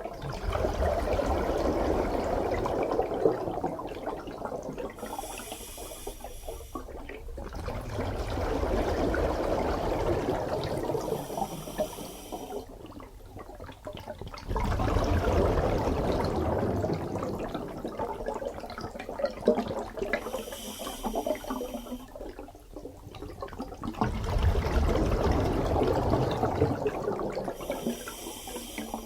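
Scuba diver breathing underwater: long bursts of exhaled bubbles, each a few seconds long, separated by a short high hiss, in a steady cycle about every seven to eight seconds.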